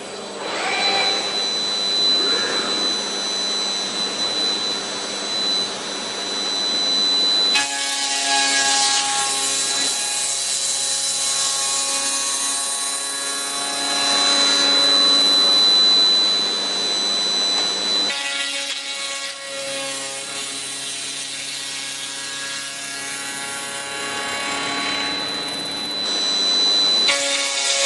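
Routech OIKOS CNC beam-processing center machining a wooden beam with a circular saw head: the motor runs with a steady high whine under the noise of the blade in the wood. The sound changes abruptly about a quarter of the way in, again a little past halfway, and once more near the end, as the cut goes on.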